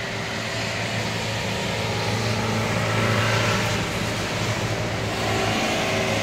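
Road traffic on a rain-soaked street: vehicles passing with tyre hiss on the wet road, over a steady hiss of heavy rain and a low steady hum, the traffic swelling a little around the middle.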